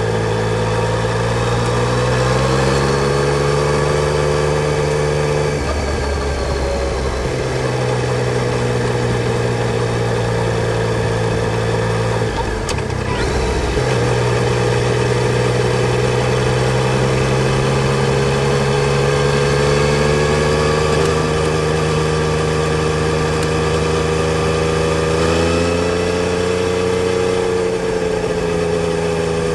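Yamaha Tracer 900 GT's 847 cc inline three-cylinder engine running steadily, its pitch rising slowly and then dropping with a brief break about six seconds in and again about thirteen seconds in, before climbing again.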